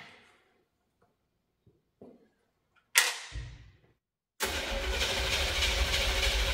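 Chevrolet C50 truck engine being cranked on the starter without catching: a single sharp crack about three seconds in, then steady cranking from about four and a half seconds on. It will not fire because the distributor wire has been left unplugged from the cap.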